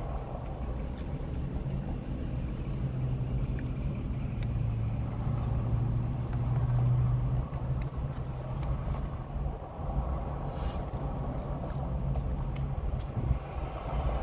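Low, steady vehicle engine rumble heard through open car windows. It swells from about four and a half seconds in and eases off around eight seconds.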